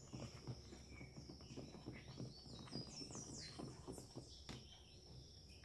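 A spoon stirring a thick mix of glue, shaving foam and talc in a plastic tub for slime, making faint, quick, even strokes. A few faint bird chirps come in about halfway through.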